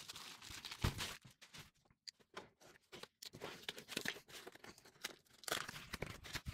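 Faint handling of a cardboard shipping box and a plastic mailer on a wooden desk: scattered rustles, crinkles and light taps, quieter for a couple of seconds in the middle and busier near the end.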